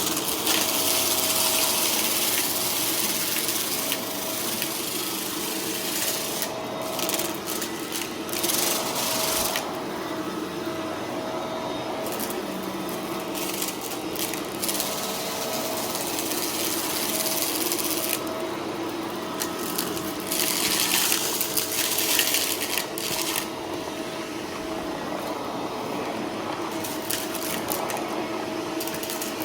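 Shark vacuum cleaner running steadily, with repeated crackling bursts of confetti rattling up the nozzle, the heaviest about a third of the way in and again past the middle.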